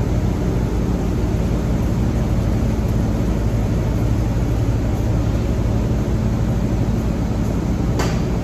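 Steady mechanical hum with an even hiss, from machinery running in the room, and a single short click about eight seconds in.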